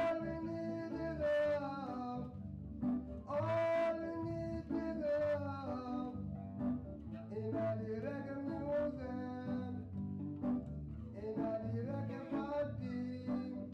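Live music: a man's voice singing phrases of long, held notes over electric guitar and an electric bass line, with short instrumental gaps between the phrases.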